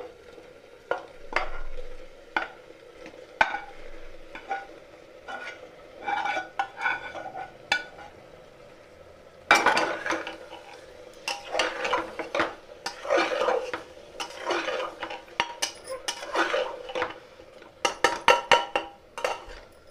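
A metal spatula scrapes and clinks against a pressure cooker and a frying pan as fried mushrooms are scraped into the masala and stirred in. The scraping is sparse at first and becomes busier and louder from about halfway through.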